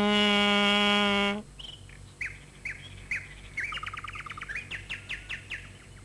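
A loud, long steady note with many overtones cuts off about a second and a half in. Birds then chirp with many short falling chirps and a quick trill near the middle.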